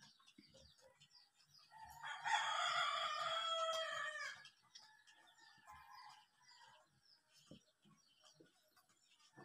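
A rooster crows once, a single call of about two and a half seconds starting about two seconds in. Faint small bird chirps and soft taps of handling lie around it.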